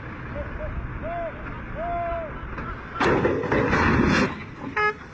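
Raised tipper trailer of an articulated dump truck toppling over while unloading and crashing to the ground, a loud crash about three seconds in that lasts a little over a second. Before it, a few short high calls over steady outdoor background noise.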